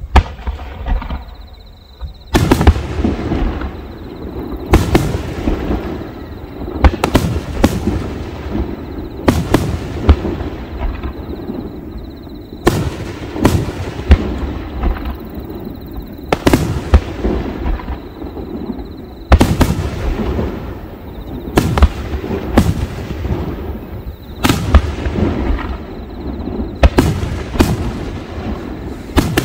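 Aerial firework shells bursting in a display: a long series of sharp bangs, often in quick pairs or triplets, each followed by a rumbling echo. One bang comes right at the start, and the steady volley begins about two seconds in.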